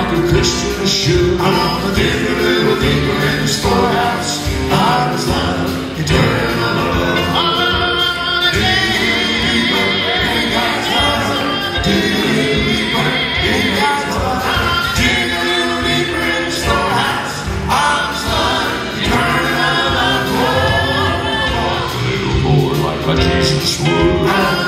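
Male gospel quartet singing a song in close harmony, with a live band backing them.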